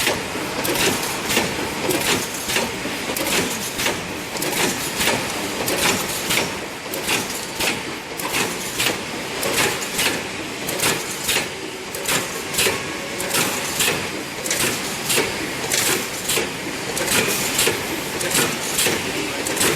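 Automatic wire mesh welding machine running in production, a rhythmic mechanical clatter of welding strokes repeating about one and a half times a second over steady machine noise.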